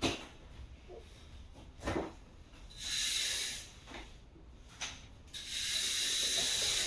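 Rubbing, hissing noise in two stretches, a short one about three seconds in and a longer one near the end, with a few soft knocks between them.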